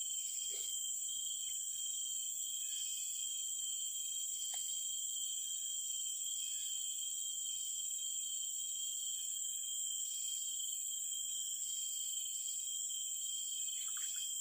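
Chorus of insects: a steady high drone with a high trill over it that cuts in and out every second or two. A light splash in the water near the end.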